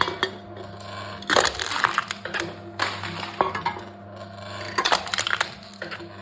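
Aluminium drink cans being crushed by a can-crushing machine: a run of crackling, crumpling crunches roughly every one and a half seconds, over a steady low hum.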